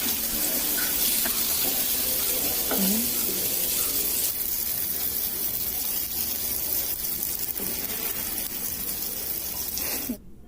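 Paniyaram batter sizzling in the wells of a hot kuzhi paniyaram pan, a steady hiss that drops out briefly near the end.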